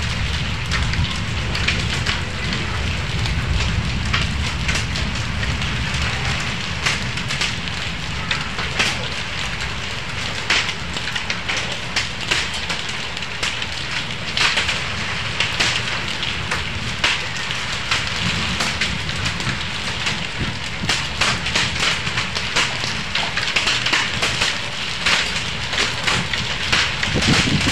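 Hailstorm: rain and hailstones pelting the ground in a dense, steady patter with many sharp ticks of stones striking, over a low rumble.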